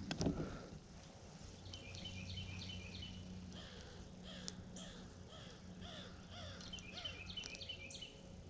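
Birds calling, with two runs of quick high chirps and a string of lower falling notes in the middle, over a steady low hum. A single knock sounds right at the start.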